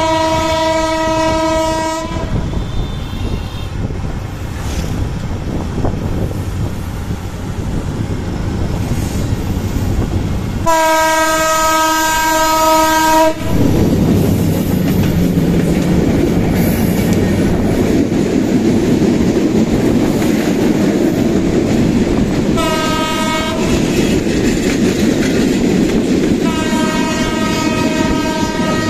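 Kurigram Express train's diesel locomotive sounding its horn four times: a blast of about two seconds at the start, a longer and louder one near the middle, a short toot about two-thirds of the way in, and another near the end. Between the blasts there is a steady rumble of the train running close alongside, with wheel clatter from the coaches in the second half.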